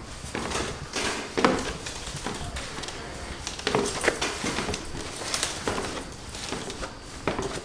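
Footsteps of someone in slide sandals walking down stairs, a knock on each tread at uneven spacing, roughly one a second.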